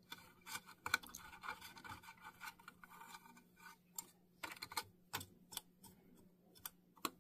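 Pipe cleaner scrubbing dust out of the metal shuttle area of a Kenmore sewing machine. Faint, irregular scratching through the first half, then scattered light clicks and taps.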